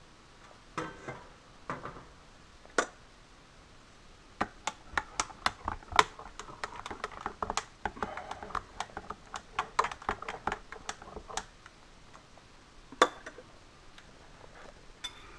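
A spoon stirring coffee grounds in a glass French press, clinking against the glass in a quick, irregular run of ticks for several seconds. A few single clinks come before the run and one after it.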